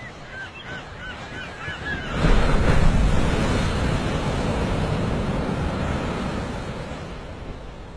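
A bird calls in a quick series of short, high chirps for about two seconds. Then a loud rushing noise sets in suddenly and slowly fades.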